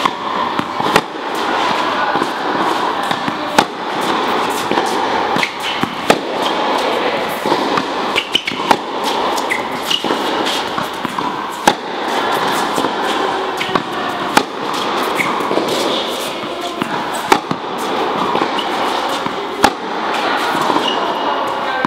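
Tennis ball struck by a racket in a baseline rally on an indoor court: a sharp pock every two to three seconds with fainter clicks of bounces and return shots between, over steady background noise.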